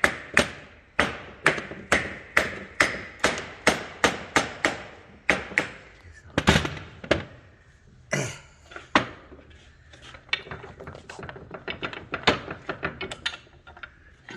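Hammer tapping a crown wheel down onto a Dana 44 Eaton Detroit locker carrier's flange: ringing metal strikes about two to three a second for some six seconds, then a few slower, heavier blows, then lighter, quicker taps near the end.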